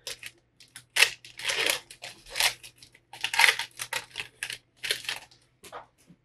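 Foil wrapper of a 2021 Panini Absolute Football card pack being torn and peeled open in a series of short crinkling rips, ending as the stack of cards is pulled out.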